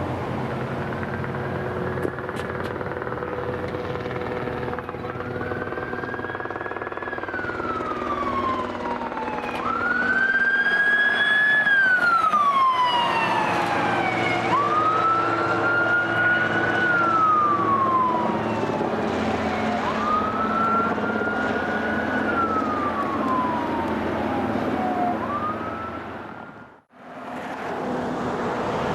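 Fire apparatus siren on wail as the units respond code 3: about six sweeps roughly five seconds apart, each climbing quickly, then falling slowly, over a steady low vehicle hum. The sound cuts out briefly near the end.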